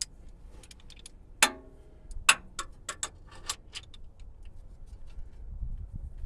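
Sharp, irregular metallic clicks and clinks of a socket and ratchet being handled and fitted onto a motor mount bolt. The loudest comes about one and a half seconds in with a short ring, followed by a run of lighter clicks.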